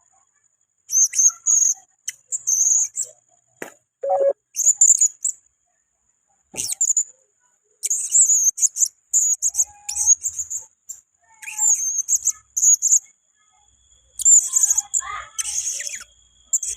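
Blue-crowned hanging parrot (serindit) giving bursts of thin, very high-pitched chirps, each burst lasting about half a second to a second with short pauses between, plus a couple of sharp clicks.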